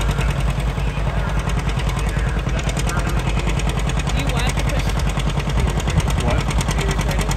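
Vintage two-cylinder John Deere tractor engine pulling a tractor-pull sled under load, its exhaust popping in a rapid, even rhythm.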